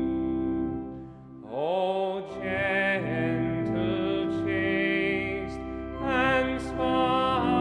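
A hymn sung by a voice with vibrato over sustained organ chords. The organ holds alone for a moment, then the voice comes in with an upward slide about one and a half seconds in.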